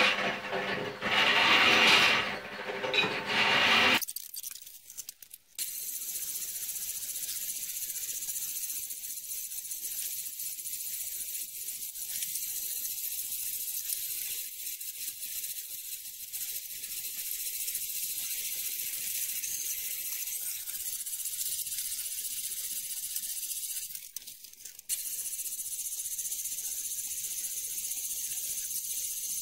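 Small electric concrete mixer running, its motor humming while the drum is tipped and knocked to empty out the bonding slurry. About four seconds in this cuts off and gives way to a steady high hiss with nothing underneath, which dips briefly near the end.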